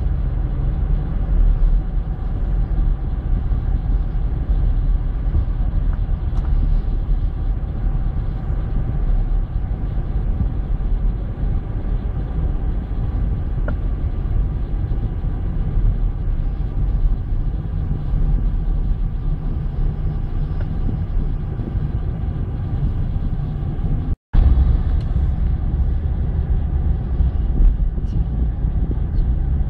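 Steady low rumble of engine and road noise inside a moving car's cabin, dropping out completely for a split second well past the middle.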